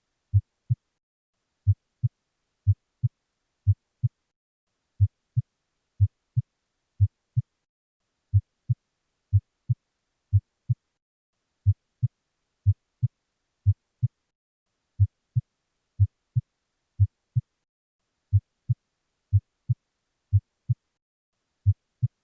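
Normal heart sounds: a steady lub-dub, a pair of short low thumps about once a second. The first thump is S1, the mitral and tricuspid valves closing at the start of systole; the second, close behind, is S2, the aortic and pulmonic valves closing at its end.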